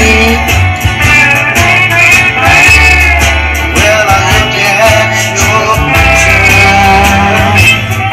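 A woman singing a rock song into a microphone over loud backing music with guitar, bass and drums.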